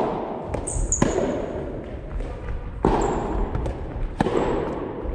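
Soft tennis rally: a rubber soft tennis ball struck back and forth by rackets, sharp hits about every one and a half seconds, each ringing on in the gymnasium's long echo.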